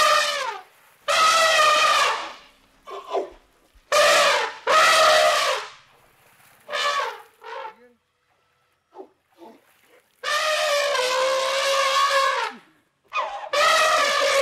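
Elephant trumpeting: a string of about eight loud trumpet calls, most a second long or shorter, with one held for about two seconds starting about ten seconds in. Short, fainter squeaks come between them.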